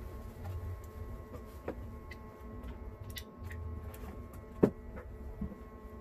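Quiet office with a faint steady hum and scattered light knocks and clicks from a person moving things about; one sharper knock a little over halfway through.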